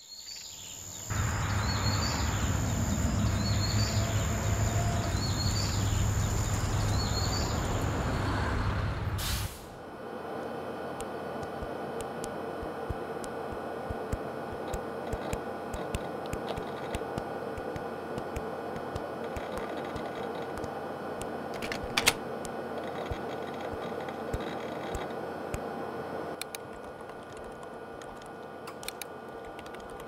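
A loud low rumble with a steady high whine and a short chirp about once a second, cutting off after about nine seconds. Then a quieter steady hum with scattered light clicks of footsteps in a school hallway, and one sharper knock about two-thirds of the way through.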